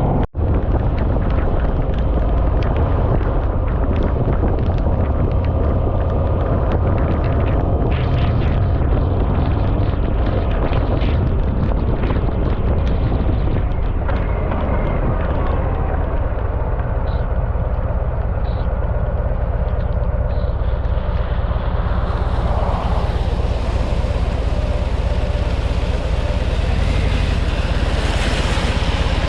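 Harley-Davidson motorcycle on the move: a steady engine drone mixed with wind rushing over the microphone.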